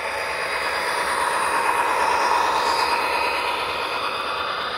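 HO-scale model passenger train rolling past, a steady rushing train sound that swells towards the middle and eases off again, with a brief thin high squeal just before three seconds in.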